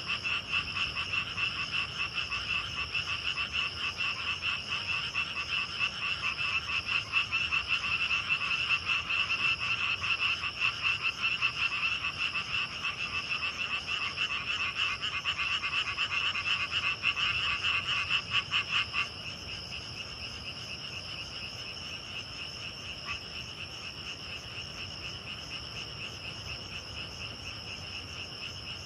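Night chorus of many frogs croaking in rapid pulses over a steady high trill of crickets and other grass insects. About two-thirds of the way through, the frogs stop abruptly, leaving only the insects trilling.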